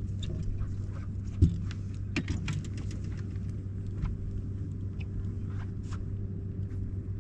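Steady low hum of a boat's motor, with a sharp knock about a second and a half in and a scatter of light clicks and ticks soon after.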